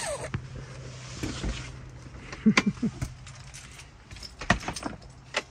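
Keys jangling and the caravan door's lock and handle clicking as it is opened, after a short rustle of the awning's fabric.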